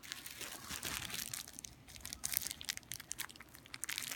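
Plastic bubble wrap crinkling and crackling as fingers squeeze and handle it, in a dense run of small irregular crackles with a few sharper snaps about halfway through.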